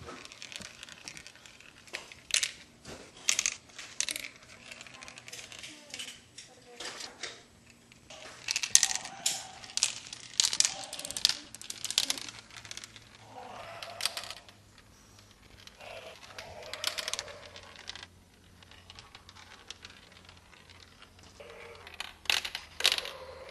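Glass marbles clicking and rattling down a marble run toy: irregular sharp clicks in clusters, some quick rattling runs, with short gaps between.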